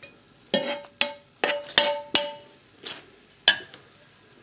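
Metal spoon clinking against a ceramic bowl of rice: a series of irregular knocks, several ringing briefly.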